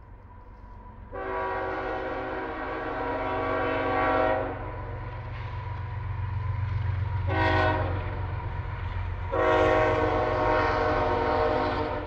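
Diesel locomotive air horn sounding a long blast, a short one, and another long one, over the steady low rumble of the passing train.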